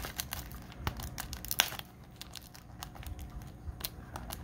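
Plastic shrink wrap on a disc case being picked at and pulled with the fingers: irregular crinkling and crackling, with one sharper crackle about a second and a half in.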